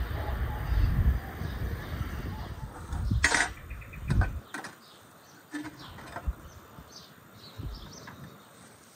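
Wind buffeting the microphone with a low rumble, then about three seconds in a sharp metal clank as a hinged wire grill basket is turned over on a charcoal brazier, followed by a few lighter metallic clicks and faint bird chirps.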